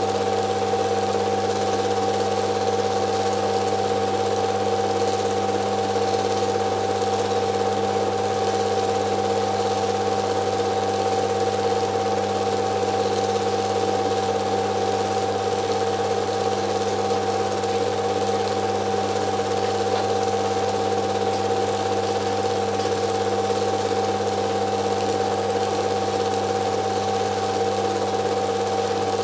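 Steady mechanical hum and whir of a film projector running.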